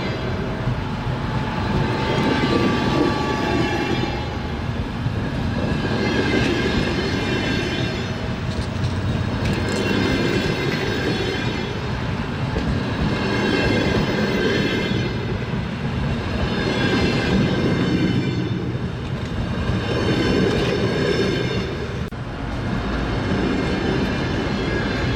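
Train wheels clattering over the rails with a steady low rumble. The sound swells about every three and a half seconds, each swell carrying a high metallic ringing or squeal from the wheels.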